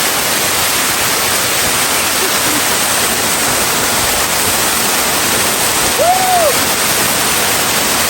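Waterfall pouring hard: a loud, steady rush of water. About six seconds in, one brief tone rises and falls over it.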